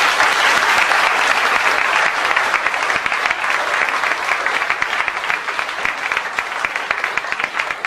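Audience applauding: dense clapping from many hands that starts suddenly and thins a little into more separate claps toward the end.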